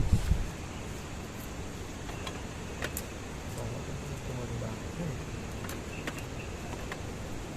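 Steady rushing wind, with a gust buffeting the microphone at the start and a few small sharp clicks scattered through.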